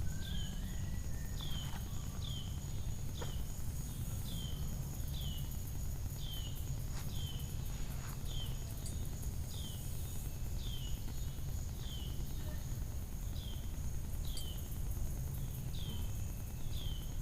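A bird repeating a short down-slurred whistle about once a second, over a steady high-pitched insect drone, with wind rumbling on the microphone.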